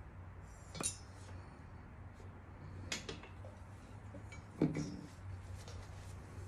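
Three light metallic clinks of a valve and tools knocking against an aluminium cylinder head during valve lapping, the last the loudest, over a steady low hum.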